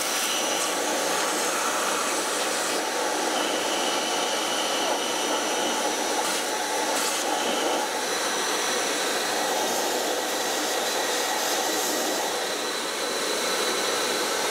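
Vacuum cleaner running steadily with its hose nozzle in the smoke box of a coal-fired model steam locomotive, sucking out the char left from steaming, with a steady high whine over the rush of air.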